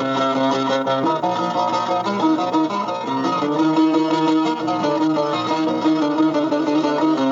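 Instrumental break in a Turkish Alevi folk song: plucked string music with fast picked notes over held lower notes.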